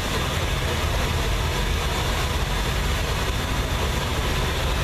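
Drag car's V8 engine idling through open exhaust headers, a loud steady low pulsing.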